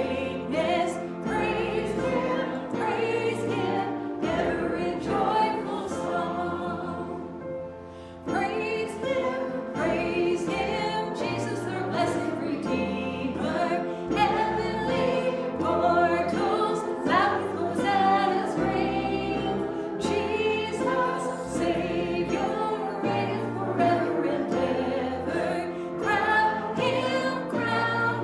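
Choir singing a hymn with instrumental accompaniment and a moving bass line.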